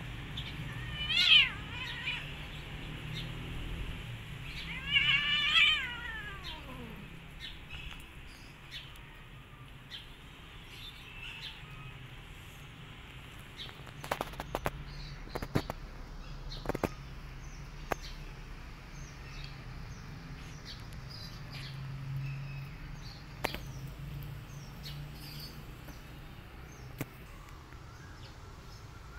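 A cat meowing twice: a short call about a second in, then a longer call around five seconds in that falls in pitch. A few faint clicks follow later.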